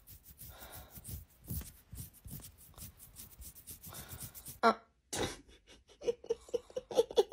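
Bedding rustling and scratching under a duvet as a foot rubs against someone's leg, in quick scratchy strokes, played at double speed. About two-thirds through there is one brief vocal sound, and a run of quick short vocal sounds comes near the end.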